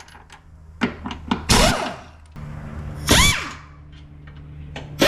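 Power tool run in three short bursts, each spinning up and back down in pitch, over a steady low hum.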